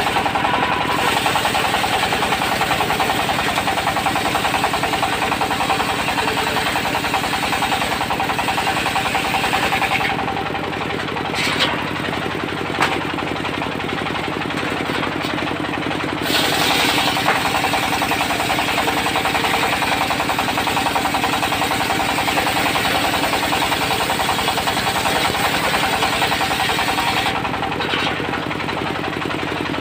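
Diesel engine of a portable circular-saw sawmill running steadily, with the spinning blade cutting through teak in two long passes of about ten seconds each; the cutting noise stops about ten seconds in and again near the end, leaving the engine running on its own.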